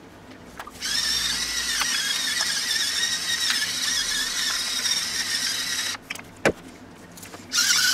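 Hand spice mill being twisted, grinding seasoning in a steady run of about five seconds, then stopping with a single click and starting to grind again near the end.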